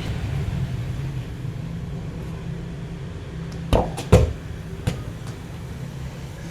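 A steady low engine hum, with two sharp thumps close together a little past halfway and a lighter knock soon after.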